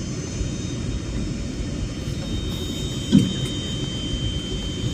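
Jet airliner cabin noise: a steady low rumble with a thin high engine whine over it, and one short thump about three seconds in.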